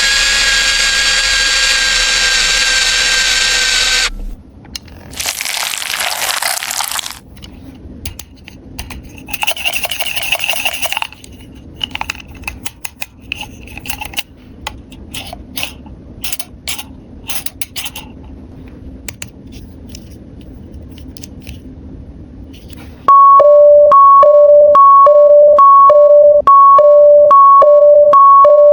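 A toy drill gives a loud steady electronic buzz for the first few seconds. Plastic packaging rustles and small plastic pieces click. Near the end a toy ambulance's electronic two-tone siren sounds loudly, alternating a low and a high note.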